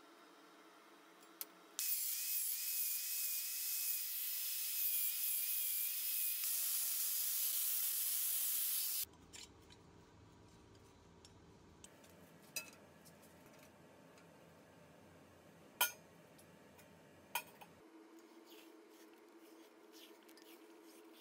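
Electric angle grinder grinding steel for about seven seconds: a loud hiss with a high motor whine that wavers as the load changes, then cuts off sharply. A few light clicks follow.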